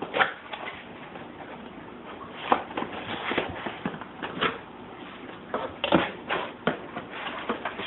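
Cardboard box being opened and handled: irregular scrapes, rustles and knocks of cardboard flaps and packing, with a few sharper knocks in the middle.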